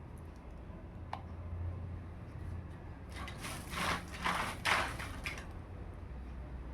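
Small plastic toy pieces and packaging being handled: a sharp click about a second in, then a few short rustling scrapes about halfway through.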